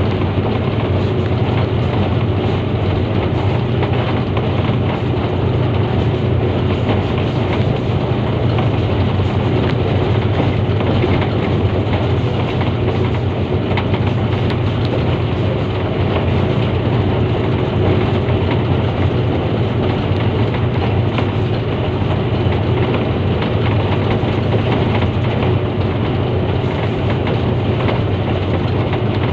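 Diesel locomotive running along the line, heard from its cab: a steady low engine drone under an even rushing noise of the wheels on the rails.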